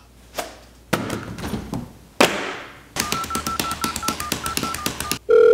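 A few scattered clicks and knocks, then from about three seconds in a fast, even run of clicks with short beeps as the buttons of a toy telephone are pressed, like dialing a number. A loud steady tone starts just before the end.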